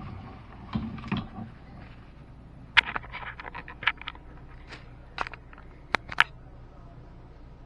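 Irregular sharp clicks and knocks: a couple of duller knocks about a second in, then a run of a dozen or so quick sharp clicks and taps, over a low steady hum.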